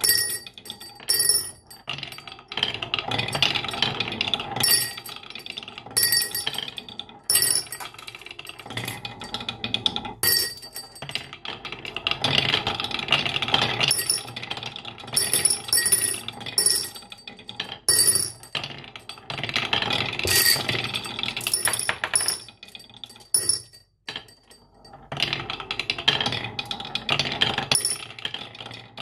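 Marbles rolling and clattering down a marble run, with many sharp clicks and repeated bright, ringing clinks.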